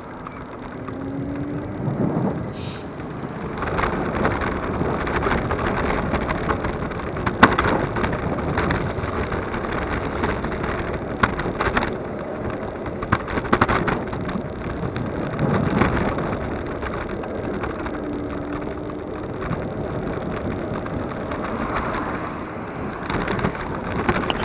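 Superpedestrian electric scooter riding along a road: a steady rush of wind and road noise, broken all the way through by many sharp knocks and rattles.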